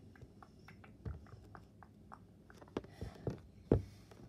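Hands squeezing and handling a foam squishy toy against a tabletop: a run of small soft clicks, with a few dull knocks in the second half, the loudest near the end.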